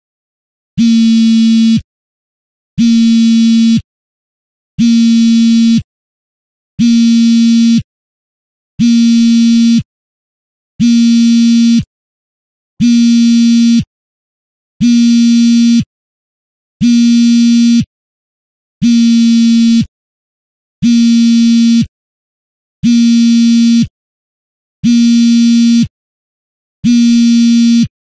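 Mobile phone vibrating on fabric: a low buzz in pulses a little over a second long, repeating every two seconds with silence between, the ringing pattern of an incoming call.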